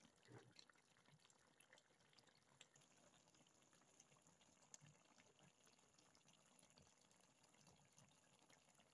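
Faint bubbling of a menudo stew simmering in a pan, with small scattered pops as bubbles break in the thick tomato sauce.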